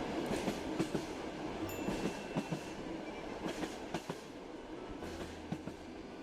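Passenger train heard from inside the carriage: a steady rumble with the clack of wheels over rail joints, slowly fading out.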